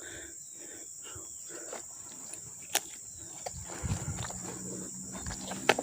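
Steady high-pitched insect chirring, with rustling, a few low thumps and two sharp clicks, one near the middle and one near the end.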